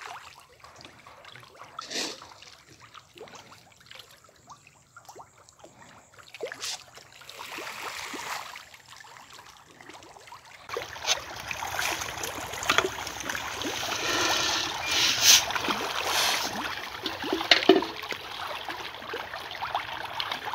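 Tilapia feeding at the surface of a fish pond: faint scattered splashes at first, then, about halfway through, a sudden dense churning and splashing of water with many sharp splashes.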